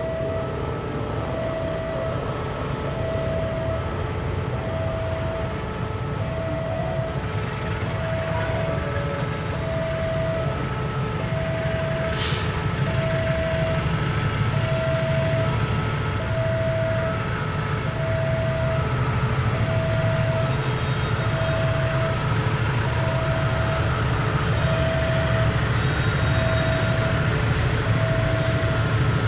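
GE CM20EMP diesel-electric locomotive running with a steady low rumble as it slowly hauls ballast wagons closer, growing gradually louder. A beeping warning tone repeats about every second and a half throughout, and a short hiss sounds about twelve seconds in.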